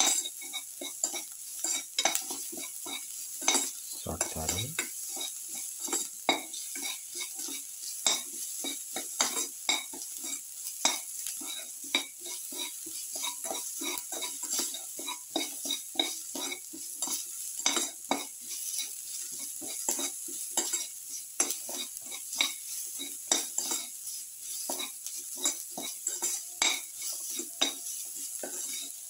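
Sliced onions, garlic cloves and ginger sizzling in oil in a steel kadai while a spatula stirs them, scraping and clicking against the pan over and over.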